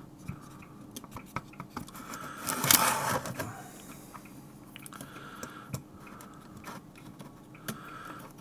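Small clicks and light scraping from hand-handling the open floppy drive's head carriage and metal frame, with a louder rustling scrape about three seconds in, over a faint steady hum.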